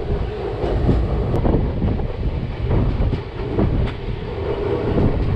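Yercaud Express passenger coach running along the track, heard from on board: a steady low rumble of wheels on rail with irregular clicks and knocks.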